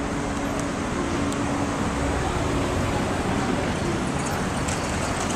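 Steady road-traffic noise, with car engines running, and a faint low hum that fades out about two seconds in.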